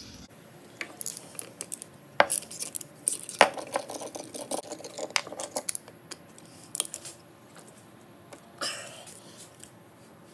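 Screwdriver working at the small Phillips screws of a cover plate on a Subaru EJ engine block: irregular metal clicks and scrapes, with two sharper clinks about two and three and a half seconds in and a brief rasp near the end.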